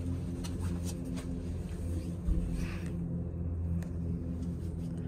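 Steady low hum inside a gondola cabin travelling along its cable over a gorge, with a few faint clicks and a low thump about two seconds in.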